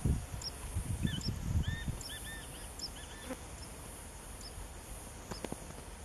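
Small birds calling at a pond: a quick series of short arched chirps in the first half, over thin high notes repeating every half-second to second. A sharp click comes near the end.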